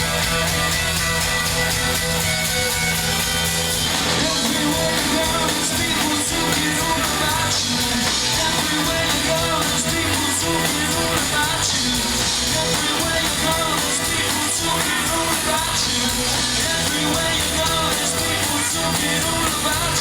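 Rock band playing live, with guitars and drums, loud and steady; a voice sings over the band from about four seconds in.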